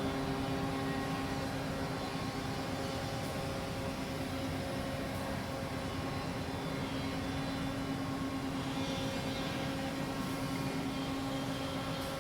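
Woodworking CNC machine running with a steady, even hum and a constant pitched tone.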